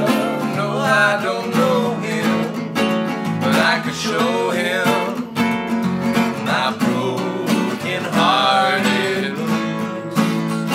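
Two acoustic guitars strummed and picked together in a live blues duo, with voices singing at times.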